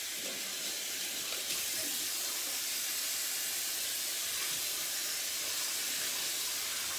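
Bathroom sink tap running in a steady stream of water.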